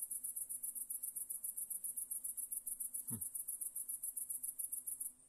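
A cricket chirping in a fast, even, high-pitched pulse train that stops shortly before the end. About three seconds in, one brief sound falls in pitch.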